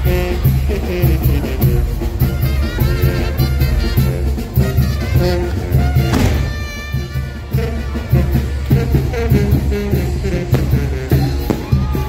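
Live Mexican banda, brass and drums, playing dance music with a steady beat and a constant bass line.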